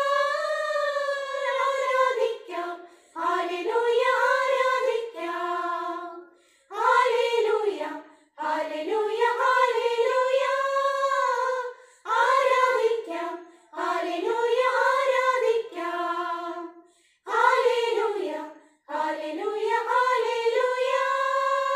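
A women's choir singing a Malayalam Christmas carol unaccompanied, in short phrases with brief silent breaths between them, closing on a long held note near the end.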